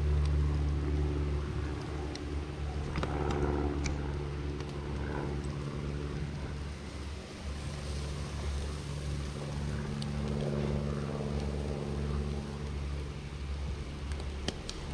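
Vehicle engine running steadily with a low hum, with a few light clicks and knocks over it.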